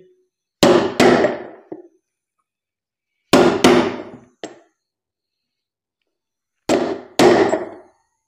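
A steel hammer striking a socket used as a drift, driving a new 6206 ball bearing (the large drum bearing) into the bearing housing of a front-load washing machine's outer tub. Three pairs of sharp metallic blows a few seconds apart, each ringing briefly, with a lighter tap after the second pair.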